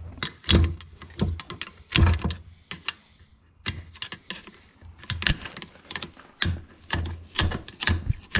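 Irregular sharp knocks and clacks, a dozen or more with a short lull partway through, as a Polaris RZR transmission case is handled and pried at to split its halves apart.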